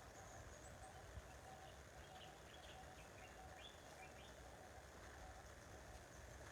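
Faint birds chirping: a few short, high chirps over a quiet steady outdoor background.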